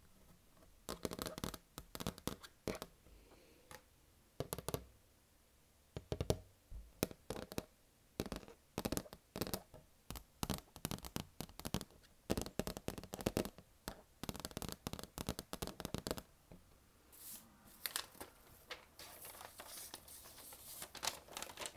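Long acrylic fingernails tapping and scratching on a vinyl LP record, in irregular clusters of sharp taps. Over the last few seconds the taps give way to a steadier scratchy rustle.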